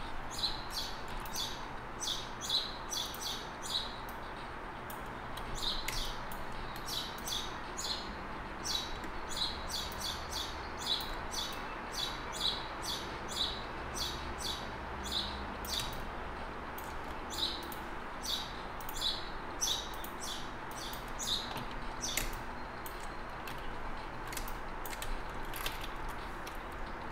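Computer mouse clicking in quick, irregular runs of several clicks a second with short pauses, over a steady low hum of room noise.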